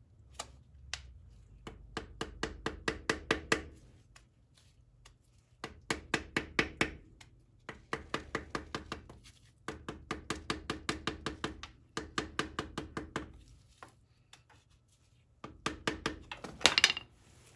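Rapid hammer taps on an oak stick driving a new differential side seal into its bore, about five strikes a second in five runs with short pauses between them. The last run, near the end, is the loudest.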